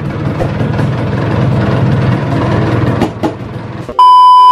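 Yamaha F1ZR's two-stroke engine running with a very noisy clutch, which the mechanic calls a severe clutch problem. About four seconds in, the engine sound cuts off and a loud, steady beep tone takes over.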